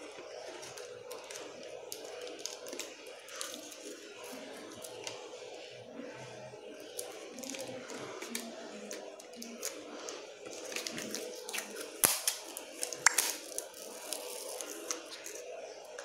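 Clear cello tape being pulled off its roll and pressed onto a plastic jar and cardboard: faint crackling and clicking. It grows busier about eleven seconds in, with a sharp click near twelve seconds, over a faint steady hum.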